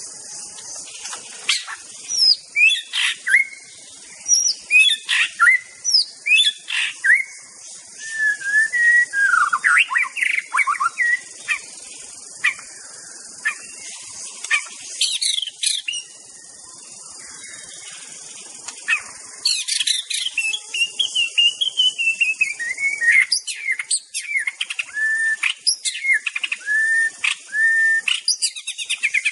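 White-rumped shama singing: varied phrases of clear whistles, sliding notes and quick chattering notes, with a pause of about three seconds midway before a long, fast run of notes. A steady high hiss runs underneath.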